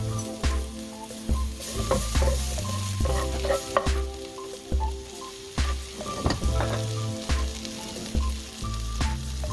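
Vegetables frying with chili flakes in an oiled stone-coated wok, sizzling steadily while a wooden spatula stirs and scrapes them with scattered clicks against the pan. Background music with a bass line plays along.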